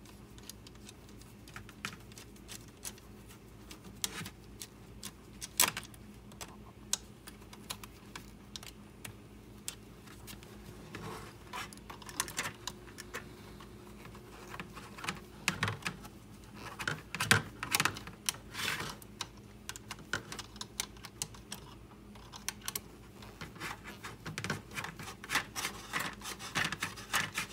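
Light clicks, taps and rubbing of 3D-printed plastic parts being handled and fitted into a model trailer frame, scattered and irregular, busier in the second half.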